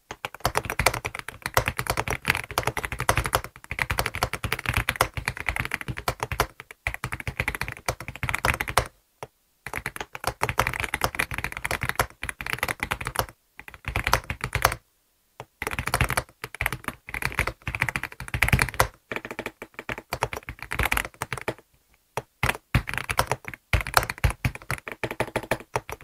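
Typing on an AULA F75 mechanical keyboard with factory-lubed linear switches and five layers of internal padding: fast runs of keystrokes, broken by a few short pauses.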